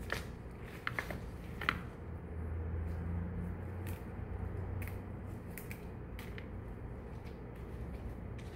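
A few short, sharp clicks and handling noises at irregular intervals, with a low hum for a couple of seconds in the middle.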